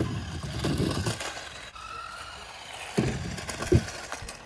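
1/18-scale Carrera Mario Kart RC car going over a ramp: a burst of rumbling and clatter as it comes off and lands on the asphalt, then two sharp knocks about three seconds in, with the thin whine of its small electric motor.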